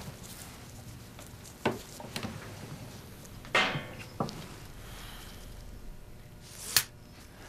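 Small handling sounds from gloved hands preparing a finger-prick blood test: a few sharp clicks and a short rough scrape, then a louder, sharp snap near the end.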